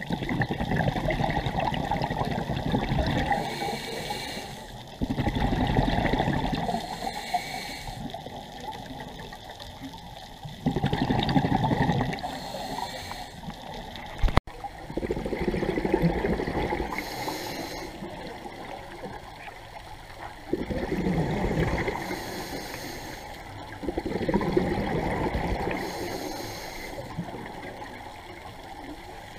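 Scuba diver breathing through a regulator underwater: a short hiss on each inhale, then a longer bubbling rush as the exhaled air escapes, repeating every few seconds. A single sharp click about halfway through.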